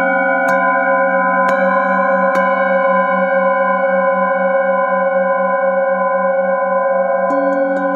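Metal singing bowls struck with a mallet three times in the first few seconds, then ringing on in a long sustained chord of overlapping tones, the lowest note wavering in a slow beat. A fresh strike comes near the end.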